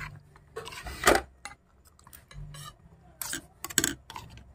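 Metal spoon clinking and scraping against bowls as grilled pork is scooped up. There are a few scattered sharp clinks, the loudest about a second in and another near the end.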